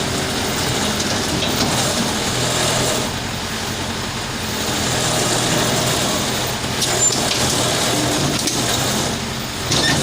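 Heavy machine engine running steadily under load, with a couple of brief knocks or clanks near the middle and the end.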